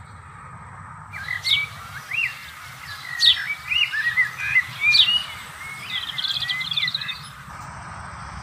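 A songbird singing a varied run of quick whistles and chirps, with a fast trill near the end, over a steady low background hum.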